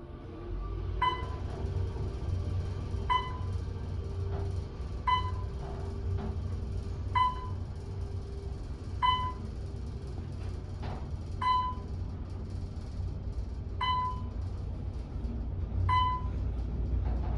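Otis Series M2 traction elevator car travelling upward over a steady low rumble. A short electronic chime sounds about every two seconds as each floor is passed.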